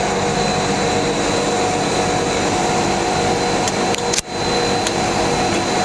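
ABS filament extrusion line machinery running: a loud, steady mechanical hum with several held tones, a few sharp clicks and a brief drop in level about four seconds in.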